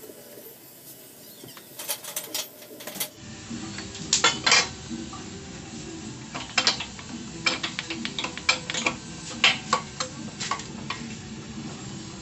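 Hand-operated pipe bender clinking and clanking as a metal exhaust elbow pipe is bent in it: irregular sharp metallic knocks, a cluster about four seconds in and many more between about six and eleven seconds.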